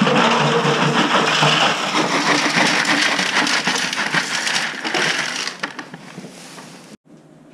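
Ice poured from plastic buckets into a galvanized metal tub, a dense clattering rattle of ice chunks landing on metal and on each other, tailing off about five to six seconds in.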